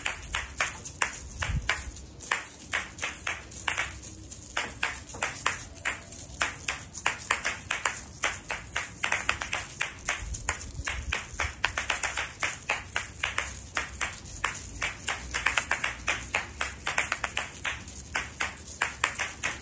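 Two pairs of asalato (kashaka), seed-filled shells joined by a cord, played freestyle: the shells click sharply against each other in a quick, syncopated rhythm of about five hits a second, with the seeds rattling inside them.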